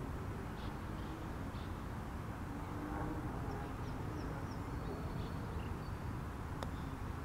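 Outdoor ambience: a steady low rumble with a few faint, short bird chirps in quick succession about halfway through, and a single faint click near the end.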